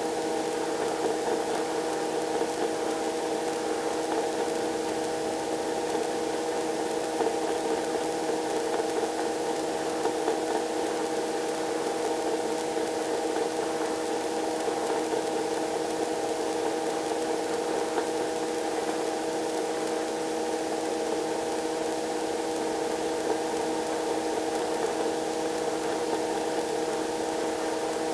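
Robinson R22 helicopter in cruise flight: its engine and rotor make a steady drone, a hum of several fixed tones over a hiss that holds unchanged throughout.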